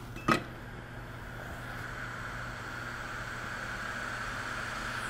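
Steady airy hiss of a hot air rework station blowing at high airflow while desoldering a chip from a laptop logic board, with one sharp click about a third of a second in.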